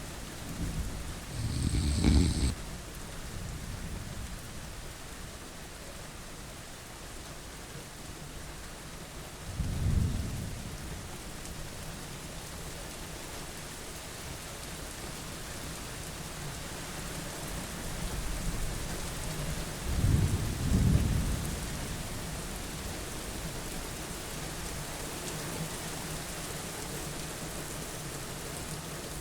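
Steady rain, with short low rumbles rising out of it about every ten seconds, three times.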